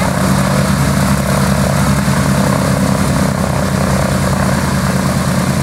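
Boeing B-17 Flying Fortress's Wright R-1820 Cyclone nine-cylinder radial engines running at a steady idle.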